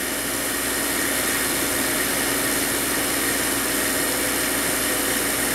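Micro quadcopter's small brushless motors spinning their propellers at low throttle in a bench motor test, a steady whir that rises slightly in the first second as motor three is brought up to speed. The motors need unequal throttle to spin, which the owner takes as a sign of a defective motor.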